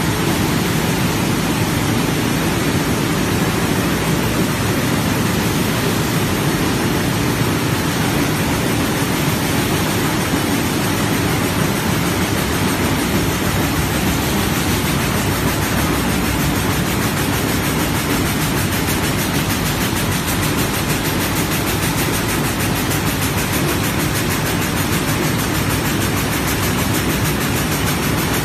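Rows of Haiying air-jet jacquard looms running together: a loud, steady mechanical din with a very fast rhythmic clatter and hiss.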